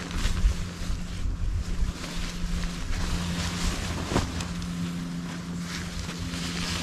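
Wind rumbling on the microphone over a faint steady hum, with scattered rustles and one sharper rustle or knock about four seconds in.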